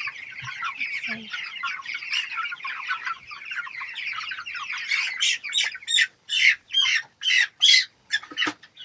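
A flock of young meat chickens peeping and cheeping. From about five seconds in, louder, separate calls stand out at roughly two a second.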